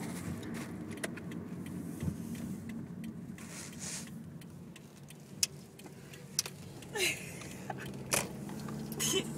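Steady low hum of a car's engine and road noise heard from inside the cabin while driving, with a few sharp clicks and short rustling swishes over it.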